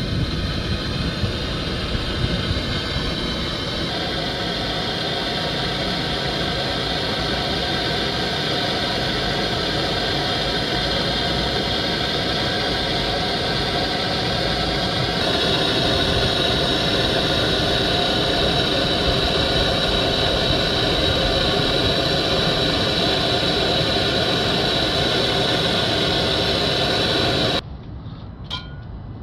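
Hand-held gas blowtorch flame burning steadily, a continuous hissing rush, as it heats a partly blocked DPF fuel vaporizer to burn off carbon. The sound shifts slightly twice and cuts off near the end as the torch is shut off.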